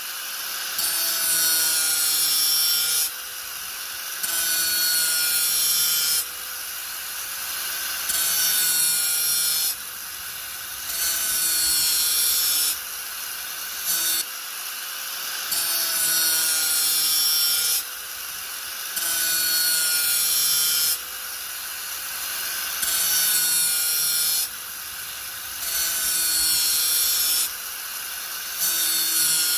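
Angle grinder running steadily and pressed into the work again and again, giving loud, hissy grinding passes about every two to three seconds with the plain motor whine in between; its pitch dips slightly as the disc bites.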